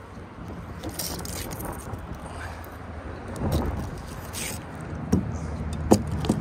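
Scattered metallic clinks and rattles of old steel fence-cable pieces stuck to a fishing magnet as they are handled, over a low wind rumble on the microphone.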